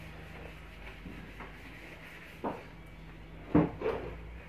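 Quiet workshop background: a faint steady hum with a few short knocks, one about halfway through and two close together near the end.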